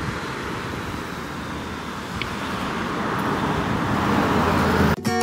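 Street traffic going by, with a car passing that grows louder toward the end. Guitar music comes in right at the end.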